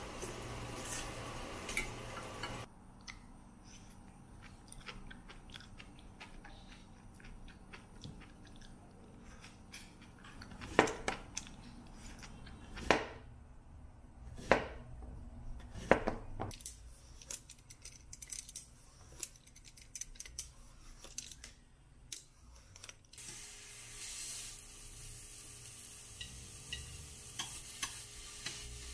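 Shrimp and green onions sizzling in a frying pan, then a knife slicing zucchini on a plastic cutting board: four loud chops a second or two apart, then quicker, lighter cuts. Sizzling returns near the end as spinach is stirred in the pan with chopsticks.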